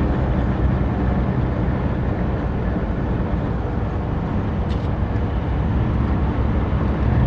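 Semi-truck's diesel engine droning steadily with road noise, heard from inside the cab while driving.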